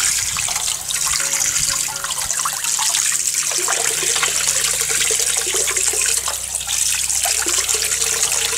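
Running water pouring into a basin and splashing as a hand rinses the blood out of the belly cavity of a gutted bonito.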